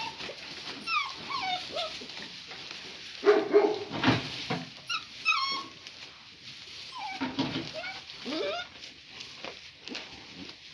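Great Pyrenees puppies whimpering and yipping in many short, high calls that rise and fall as they play with their mother, with a louder, lower call about three seconds in.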